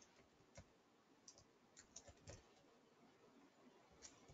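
Faint, scattered clicks of computer keyboard keys being typed: about half a dozen irregular keystrokes, a small cluster about two seconds in, over near silence.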